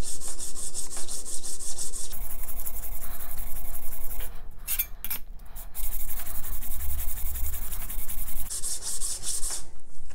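Steel card scraper rubbed flat back and forth on a wet diamond sharpening stone, a gritty scraping of rapid strokes, to clean off and flatten the scraper's faces. It eases off briefly about halfway through and stops just before the end.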